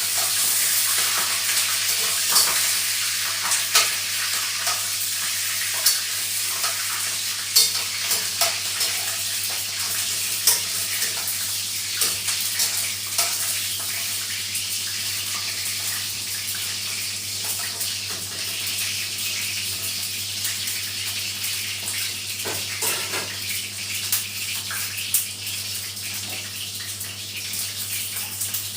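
Steady hissing from kitchen work, with scattered clinks and clicks of pots and utensils.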